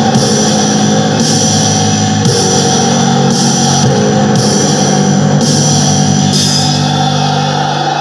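Funeral doom metal: slow, sustained distorted guitar chords over drums, with a cymbal wash about once a second. The chord shifts a couple of times.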